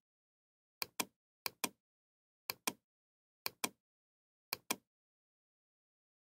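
Computer mouse clicking five times, about once a second. Each click is a quick pair of sharp clicks, the button pressed and then released, with dead silence between.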